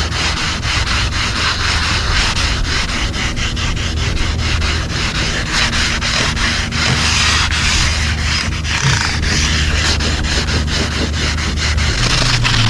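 Power sander wet-sanding automotive clear coat with 2500-grit paper, a steady rubbing hiss over a low motor hum, taking the rotted, peeling clear coat down without cutting into the base coat.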